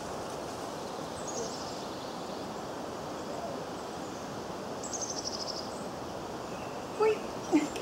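Outdoor ambience: steady background noise, with a small bird giving a quick, slightly falling trill about a second in and again about five seconds in. A couple of short, louder sounds come near the end.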